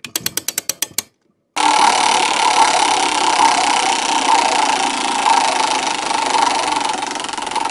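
Spinner sound effect: a quick run of about ten sharp clicks lasting a second, then, after a short gap, a steady mechanical whirring rattle that runs on for several seconds as the wheel spins through its choices, easing slightly near the end.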